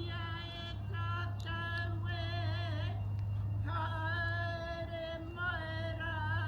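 A woman's karanga, the high-pitched Māori ceremonial call of welcome, in long chanted phrases, some ending in a wavering held note. A steady low hum runs underneath.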